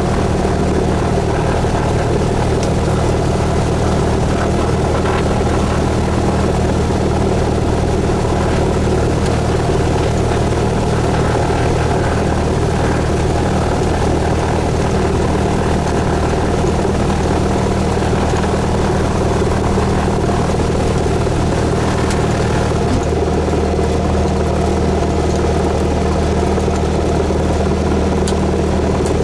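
Cessna 172S's four-cylinder Lycoming piston engine and propeller running with a steady drone; the tone shifts slightly about three-quarters of the way through.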